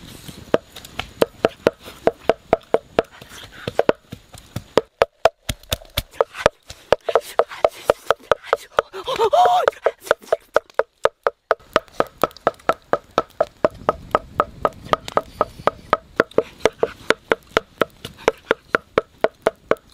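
Wooden pestle pounding in a wooden mortar: steady hollow knocks about three a second, pausing briefly twice.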